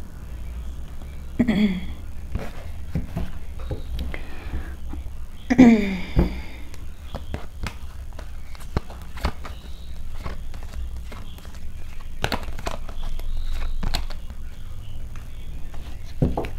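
Tarot cards being shuffled and laid down by hand: an irregular run of soft clicks and taps. A short murmured voice sound comes twice in the first six seconds.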